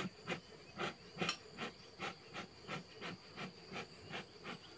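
Bee smoker's bellows being pumped: short hissing puffs of smoke at a steady rhythm, about three a second.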